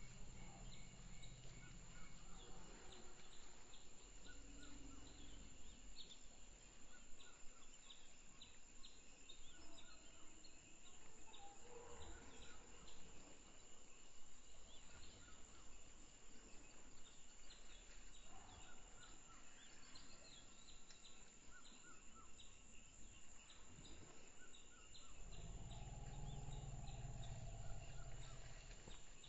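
Natural ambience of a tropical forest clearing: steady insect chirring with many short clicking calls and scattered bird calls. A low rumble rises for a few seconds near the end.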